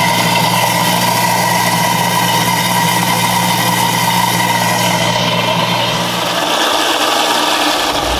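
Stainless-steel jar countertop blender running steadily as it blends a thick açaí and banana smoothie. Its low hum drops away about six and a half seconds in.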